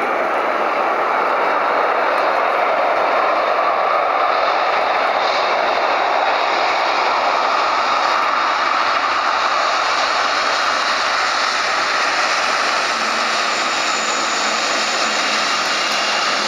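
Boeing 777 freighter's GE90 jet engines heard as a steady, even rushing noise as the airliner rolls out on the runway after landing.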